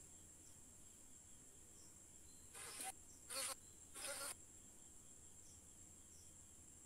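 Faint, steady high-pitched hiss. It is broken about midway by three short rustling knocks from a handheld camera being jostled.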